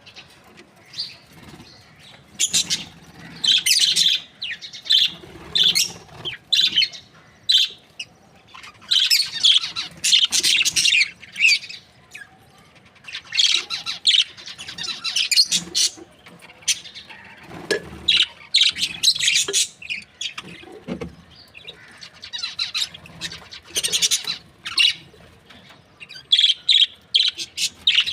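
A flock of budgerigars chirping and chattering in bursts, with short pauses between the clusters of calls.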